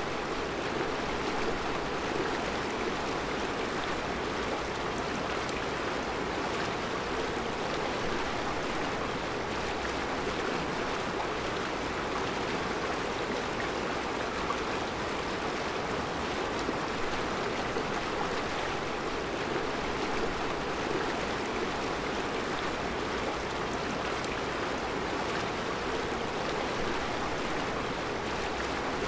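Mountain river flowing over round rocks: a steady, even rush of water.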